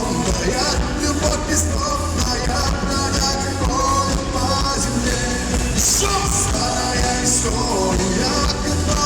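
Live pop-rock band playing a ballad with drums and cymbals, and a sung vocal line over it.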